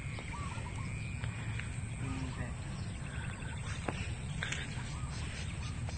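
Outdoor field ambience: a steady low rumble of wind on the microphone, with faint bird chirps and a few scattered clicks and rustles.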